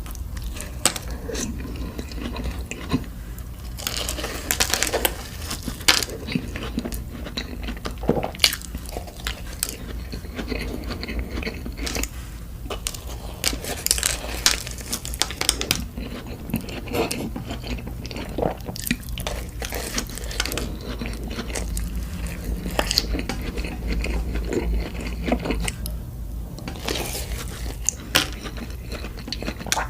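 Close-miked biting and chewing of glazed donuts with jam and Nutella: irregular short wet clicks and smacks over a steady low hum.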